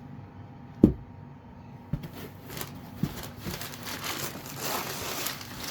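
Packaging of a smoke-alarm box being handled and opened: one sharp knock about a second in, then from about two seconds on a continuous crinkling and rustling.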